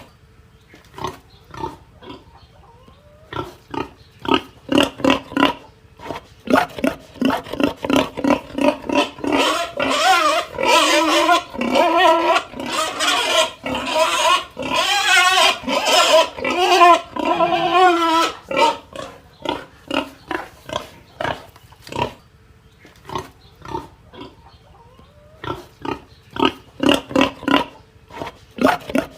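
Pigs grunting in quick runs of short grunts, breaking into loud, wavering squeals from about a third of the way in for several seconds, then falling back to grunting.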